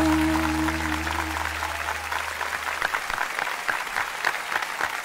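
Applause breaking out as the song's final held chord fades away over the first couple of seconds, then steady clapping.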